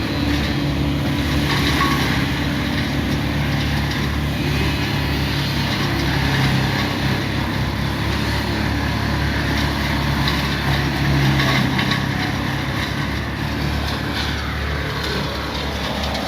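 A heavy engine running steadily at a constant speed.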